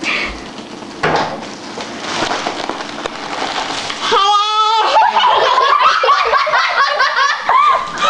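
A foil balloon crinkles as it is handled. About four seconds in comes a high, warbling voice pitched up by helium, followed by high-pitched helium-voiced giggling and laughter.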